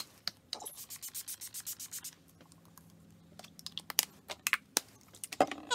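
Makeup setting spray bottle being handled and pumped: a rapid run of small clicks about half a second in, then a few sharp spritzes around four seconds in.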